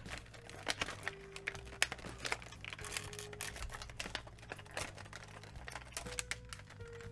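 Irregular light clicks and crinkling of plastic packaging as a large wire twist tie is worked loose from an action figure's package, over soft background music.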